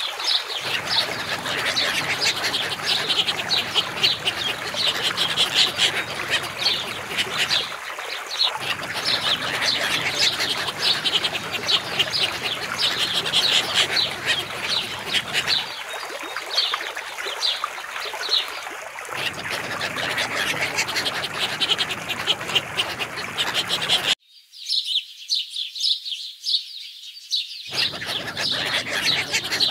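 Ducks and birds calling: dense, rapid high-pitched chirping with a busier chorus beneath it. The sound changes abruptly several times where separate recordings are cut together, and near the end only the high chirps are left for a few seconds.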